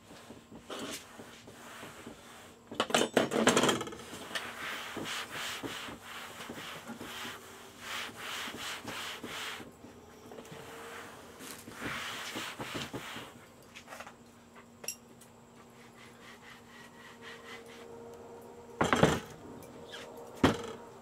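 Utensils handled on a table: a clatter of knocks about three seconds in, then cloth rubbing and wiping a metal marinade injector. Near the end comes a loud wooden knock as a wooden cutting board is set down on the table.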